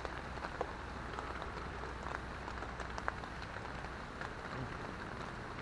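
Rain on a tent: a steady hiss with scattered light ticks of single drops.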